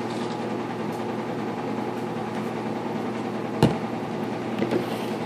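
Steady hum of a running kitchen appliance, with one sharp knock a little past halfway as a plastic baby bottle is set down on the countertop, and a few light taps near the end.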